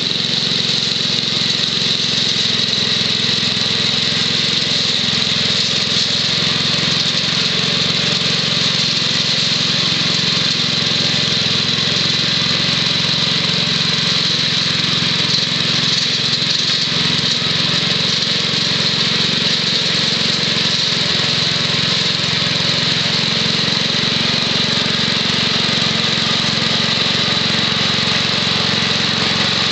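The 6 HP Tecumseh H-60 single-cylinder engine of a 1967 Wheel Horse Lawn Ranger runs steadily under load, driving a 32 inch STR-324 snowthrower through shallow snow. A steady high hiss runs over the engine throughout.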